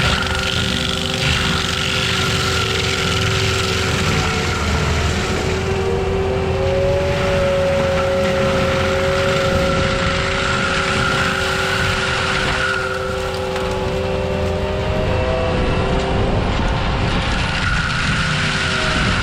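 Forestry mulcher on an ASV RT-120F compact track loader running steadily as it clears small pine and gum trees: the loader's engine and the spinning mulcher drum together give a continuous whine. One tone in it creeps slowly upward through the middle of the stretch and then falls away.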